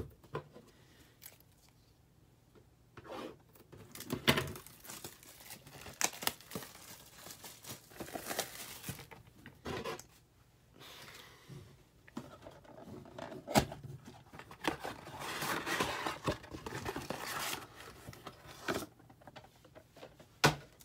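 Cellophane shrink wrap being torn off a cardboard trading-card box and crinkled, with the box opened and foil card packs handled: irregular tearing, crinkling and tapping sounds.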